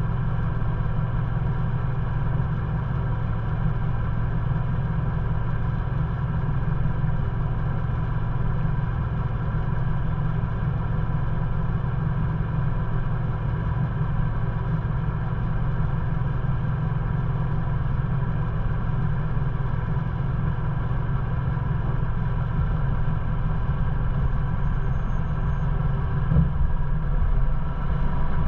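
Ford Bronco engine running steadily at low trail-crawling speed, heard from inside the cabin. There is a single knock near the end, and the engine note shifts.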